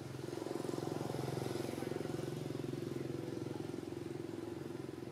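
An engine running steadily: a low drone with a fast, even pulse.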